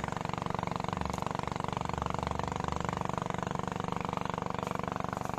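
A small engine idling steadily at an even pitch.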